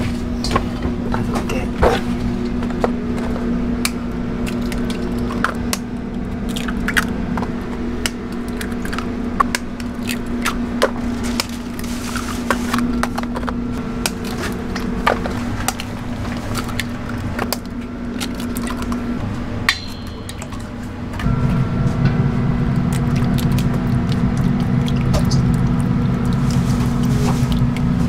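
Eggs being cracked one after another on a stainless steel bowl: many short, sharp taps over a steady machine hum. About three quarters of the way through, the low hum gets louder.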